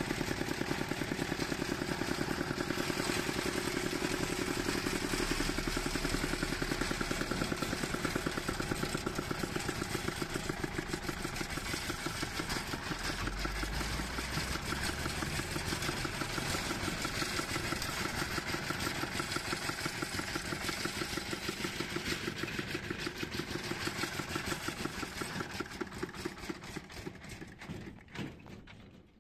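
Walk-behind tractor's single-cylinder engine running with a fast, even chug while driving, then fading away over the last few seconds.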